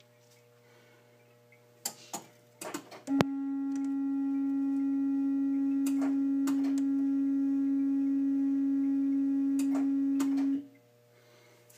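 Gottlieb System 80 pinball sound board sounding a steady, pure test tone through the machine's speaker for about seven seconds, showing that the board works. The tone starts with a click about three seconds in and cuts off suddenly near the end, after a few light clicks and taps.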